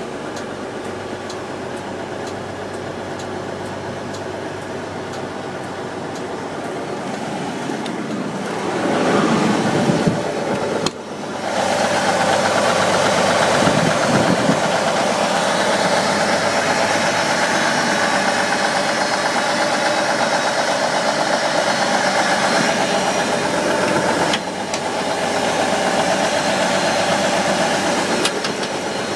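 1989 E-One Hurricane pumper fire truck's engine running. It is steady at first, then speeds up about a third of the way in and dips for a moment. It then holds at a higher, louder speed, drops back briefly near the end and comes up again.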